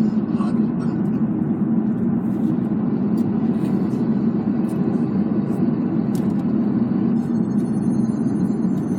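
Steady low rumble of road and engine noise inside a moving car's cabin, with a few faint ticks above it.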